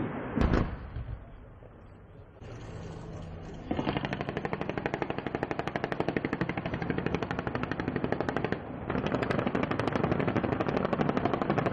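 A single loud bang about half a second in, then T129 ATAK attack helicopters' 20 mm three-barrel cannon firing long bursts of rapid, evenly spaced shots, with a brief break near the end before firing resumes.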